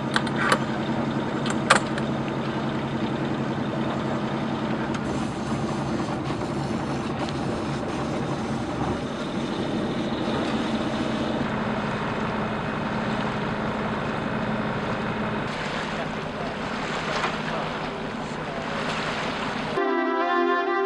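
A sailing yacht's inboard engine running steadily while motoring, with a constant low hum. Music comes in about a second before the end.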